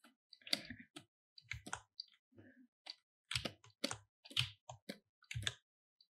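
Irregular clicking and tapping of computer input devices at a desk: a dozen or so sharp clicks in uneven clusters, some with a dull knock under them.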